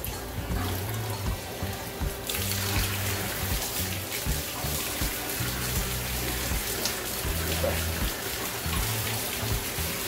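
Water from a pump-fed pipe outlet starts pouring about two seconds in, falling down a wall and splashing into a shallow glass aquarium pool, a steady rushing splash. Background music plays throughout.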